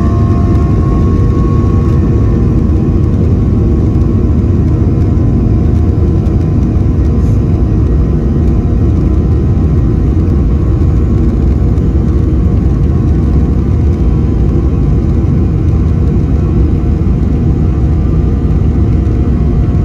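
Boeing 737-800's CFM56 turbofan engines heard from inside the cabin over the wing, running steadily with a heavy rumble and a steady whine early in the takeoff roll.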